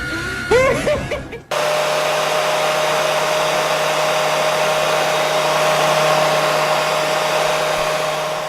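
Brief gliding, pitched cries for about a second and a half, then a sudden cut to a loud, steady whirring noise of a small electric motor, with a constant low hum and a higher steady whine, easing off slightly near the end.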